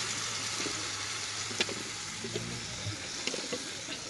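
Raw chicken pieces sizzling in hot oil in a metal pot: a steady hiss, with a light click about one and a half seconds in.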